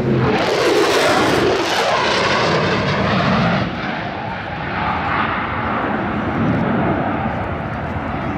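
F-16 Fighting Falcon's turbofan jet engine making a loud pass, at its sharpest and most piercing in the first two seconds. It then eases a little and falls in pitch as the jet moves away.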